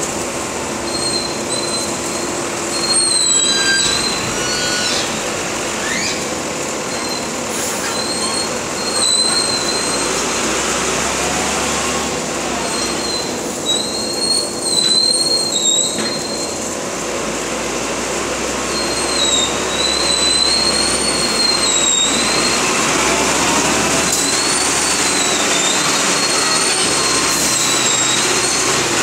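LG916 wheel loader's diesel engine running steadily as the machine scoops, dumps and pushes a load. Over it come repeated high-pitched squeals that waver up and down in pitch, each lasting one to three seconds.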